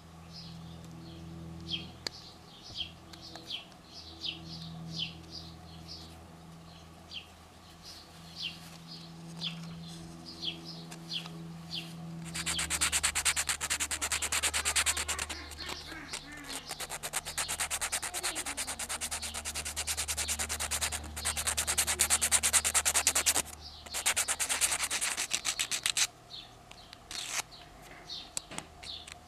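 Sandpaper on a sanding stick rubbed quickly back and forth over a small carved wooden lure body. The sanding starts about halfway through, breaks off briefly, and is sparser near the end. Before it, short high chirps repeat about twice a second.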